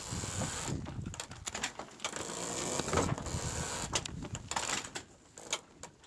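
A becalmed sailing yacht's slack sails flapping and its rigging and fittings clacking and rattling irregularly, the sign of a boat with no wind to fill its sails. It dies down near the end.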